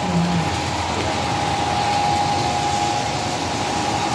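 Steady hum and hiss of an HO scale model railroad layout, with one steady high tone held throughout.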